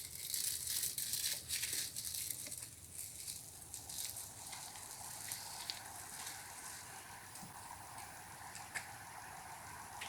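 Crackling and rustling for the first two seconds or so, then a faint, steady whir. The whir is a washing-machine motor turning a propeller slowly on a 12-volt battery, too weak to turn the wheel.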